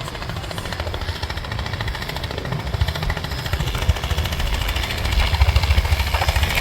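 Helicopter running, a fast low rotor beat with engine noise, growing louder toward the end.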